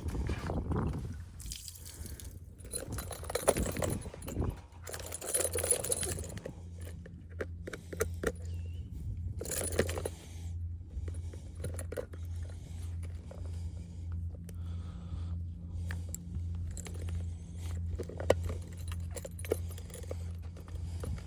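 Light metallic clinks and rattles with rustling, like small metal fishing tackle being handled, busiest in the first several seconds. From about six seconds in, a low hum pulses about twice a second underneath.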